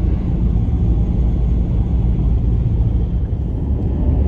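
Steady low rumble of engine and tyre noise heard inside a car's cabin while driving at road speed.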